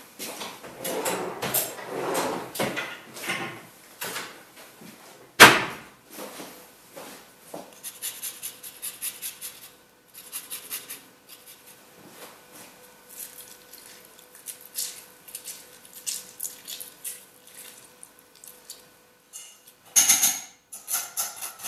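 Lemon zest being grated with a rasp grater over a steel saucepan: many short scraping strokes. A sharp knock comes about five seconds in, and a louder clatter of metal kitchenware near the end as a small sieve is held over the pan for the lemon juice.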